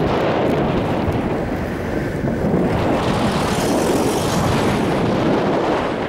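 Strong wind buffeting the microphone: a loud, steady rush with gusty low rumbling.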